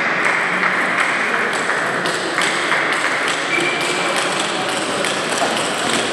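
Table tennis balls ticking sharply off bats and tables, many clicks at irregular spacing, over a steady noisy background.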